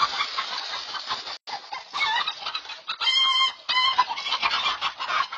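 A flock of chickens squawking and clucking in alarm while a hawk attacks, with a loud harsh squawk about three seconds in and another shortly after.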